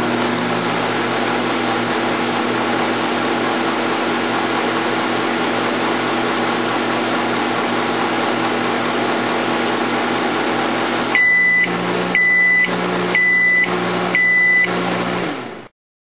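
Samsung microwave oven running with a steady hum as its timer counts down. About eleven seconds in, it gives four evenly spaced beeps about a second apart, marking the end of the cooking cycle. The hum cuts off near the end.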